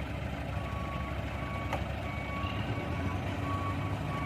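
A heavy vehicle's reversing alarm sounding in long, repeated tones over the low, steady running of a truck engine. A single sharp click comes just before two seconds in.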